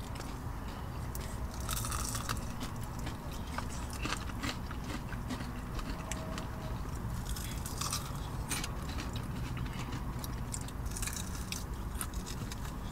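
Close-up biting and chewing of crispy fried chicken wings, a run of small crunching clicks.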